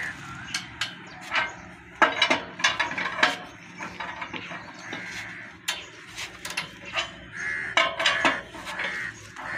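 Hand-cranked geared chain-pulley hoist on a metal frame, clicking and clanking irregularly as it is turned with an iron bar to lift a buffalo in a belly sling.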